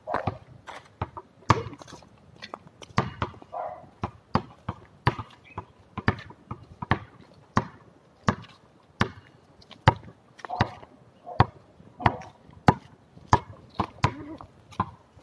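Basketball dribbled on a concrete court: a steady run of bounces, about one every two-thirds of a second.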